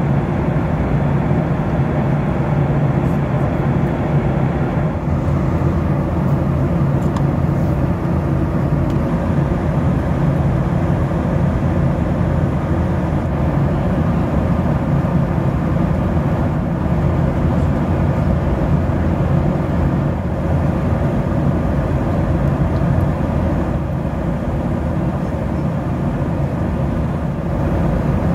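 Steady cabin noise heard from inside a Boeing 737-800 airliner: a continuous deep rush of engine and airflow noise, easing slightly in its higher part about five seconds in.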